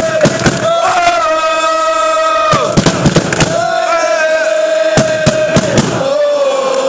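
Football supporters chanting in long held notes of a couple of seconds each, with many sharp hits between and over the notes.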